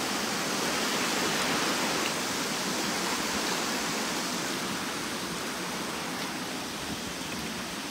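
Shallow river water running fast over stones: a steady, even rush of flowing water that eases slightly toward the end.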